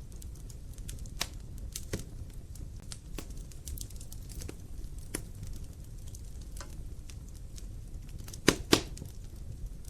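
Wood logs burning in a fireplace, crackling with scattered small snaps over a low steady rumble. Near the end two loud pops come close together.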